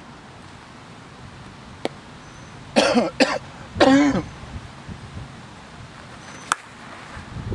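A person coughing twice in quick succession, close to the microphone, loud against the outdoor background. Two sharp short cracks come before and after it.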